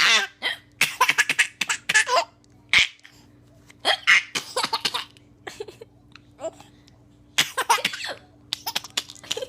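A young child laughing in repeated short bursts while hiccupping, with a sharp hiccup catching about three seconds in.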